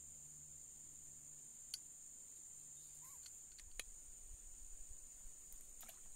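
Steady high-pitched insect chorus, with a few faint sharp clicks.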